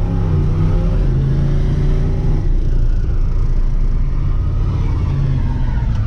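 Chevy C10 pickup's engine revving under load, heard from inside the cab; the engine note rises and falls.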